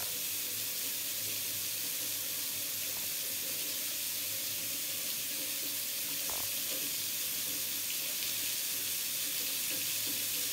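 Bathroom sink faucet running steadily, water pouring into the basin. The water is left on as a leak test for freshly tightened drain fittings.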